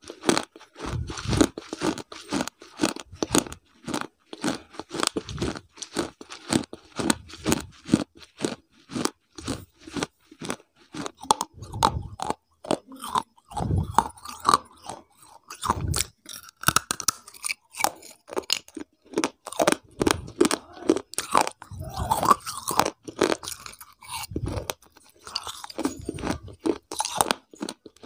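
Close-miked crunching and chewing of crunchy food: a fast, uneven run of crisp crunches with now and then a heavier bite.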